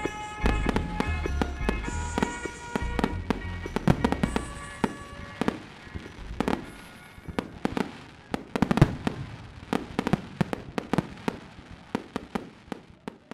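Fireworks going off: many irregular bangs and crackles, with a song playing over them until about five seconds in. The bangs grow fainter toward the end as the sound fades out.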